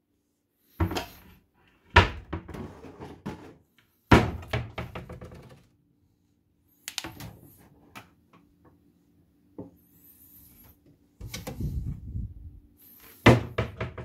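Irregular knocks, thuds and clatter of things being handled, about seven separate bursts, with a faint steady hum in the quieter middle stretch.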